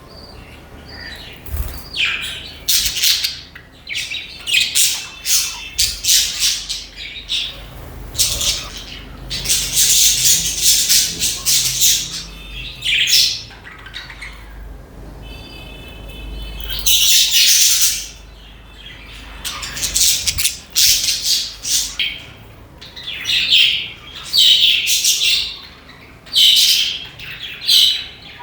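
A flock of budgerigars chattering, with rapid overlapping chirps and harsh squawks coming in bursts separated by brief lulls.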